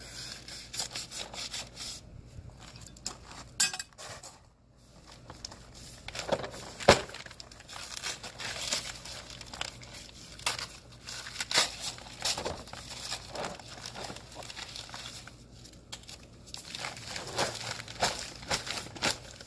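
Paper sack of Quikrete mortar mix being opened and handled, the heavy paper crinkling and tearing in irregular rustles and clicks, with one sharp knock about seven seconds in.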